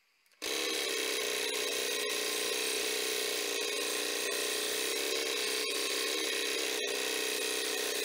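A small homemade benchtop machine with a motor, pulleys and a band is switched on about half a second in and runs steadily, with a mix of steady mechanical tones and a noisy hiss.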